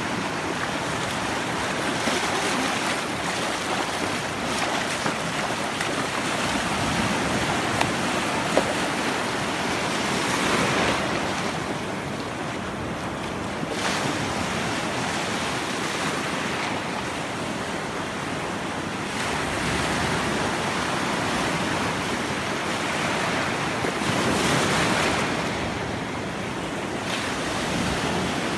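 Sea surf washing in, swelling louder every several seconds as waves break, with wind on the microphone.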